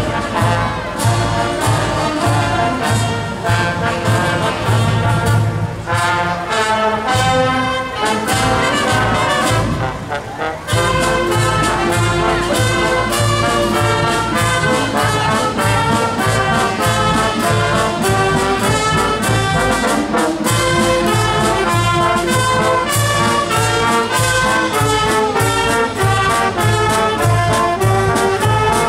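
Marching band playing: brass (trumpets and lower brass) over a steady beat on bass drum and snare drum, with a short break in the playing about ten seconds in.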